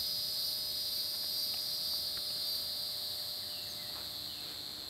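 Steady chorus of crickets and other insects, a continuous high trilling that slowly fades out.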